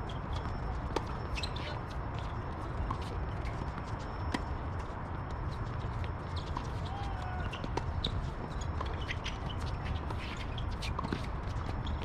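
Tennis balls struck with rackets during a doubles rally: sharp pocks at irregular intervals, some louder and nearer than others, over a steady low rumble.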